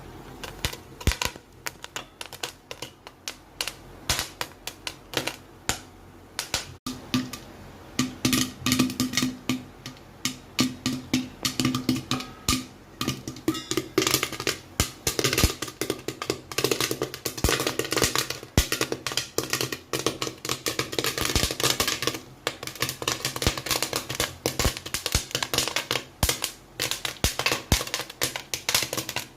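Corn kernels popping in a hot pan: scattered sharp pops at first, growing into rapid, dense popping about halfway through. Background music plays underneath.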